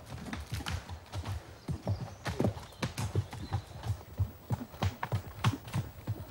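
Horses' hooves striking a dirt forest track, an uneven run of clip-clopping thuds as the hunt horses ride along it.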